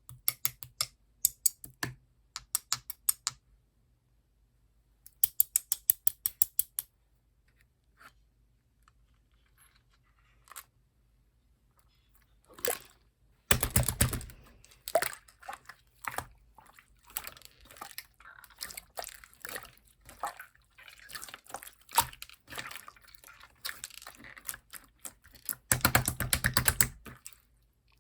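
Toy slime being played with by hand: clusters of rapid clicking pops in the first seven seconds, then a few seconds of near quiet, then almost continuous crackling and wet squishing from about halfway, loudest in two bursts.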